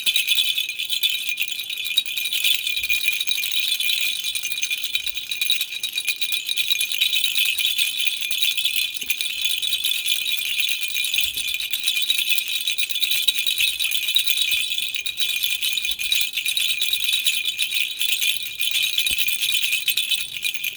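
Baby rattle shaken continuously, a steady, bright, fast rattling with no pauses.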